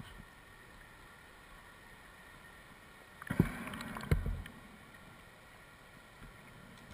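Scuba diver's regulator underwater: a burst of exhaled bubbles lasting about a second, a little over three seconds in, over a faint steady hiss.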